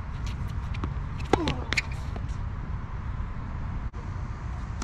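Tennis ball impacts during a rally on a hard court: a sharp pop with a short falling ring about a second and a half in, then another sharp hit just after. A steady low rumble runs underneath, with light scattered clicks.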